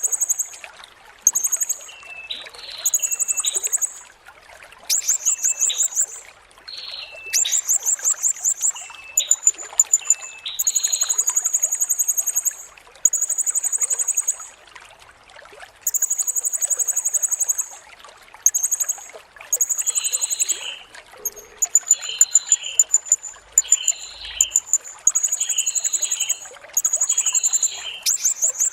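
Serindit (blue-crowned hanging parrot) singing: very high, fast buzzy trills, each about a second long, repeated with short gaps, with shorter, lower chirps in between.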